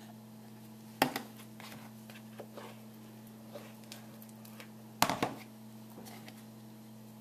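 Handling noise from an old coconut oil jar being filled with whipped hair butter: two sharp knocks, about a second in and about five seconds in, with light clicks and scrapes between.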